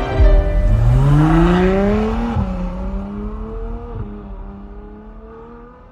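Sports car engine accelerating hard, its pitch climbing steadily, then dropping sharply at an upshift about two and a half seconds in; it runs on at a steadier pitch and fades away.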